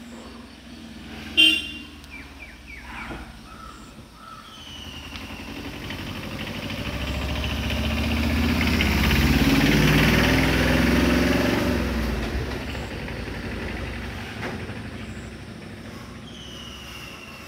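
A motor vehicle passing by, swelling to its loudest about halfway through with a low rumble, then fading away. A short sharp sound stands out about a second and a half in.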